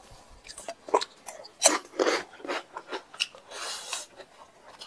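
Hand-eating sounds: fingers squishing and mixing rice with chicken curry on the plate, then chewing a mouthful, heard as a string of short wet clicks and squelches.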